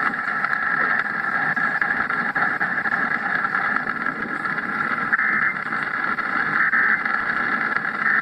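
Steady, even static-like hiss from a broadcast playing through a radio or TV speaker, with no voice and no alert tones.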